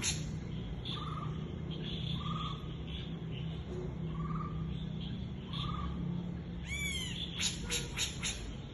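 Forest at night with animal calls: short calls repeat every second or two, then about seven seconds in comes a high, arcing call followed by a quick run of sharp chirps, over a steady low hum.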